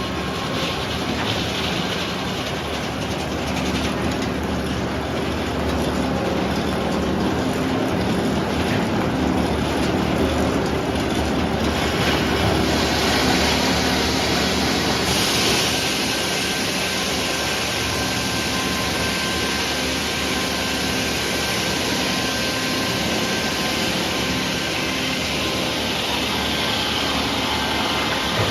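Sawmill running while sawing red oak, a steady machine drone with a hissing cutting noise that grows louder about twelve seconds in and again about fifteen seconds in.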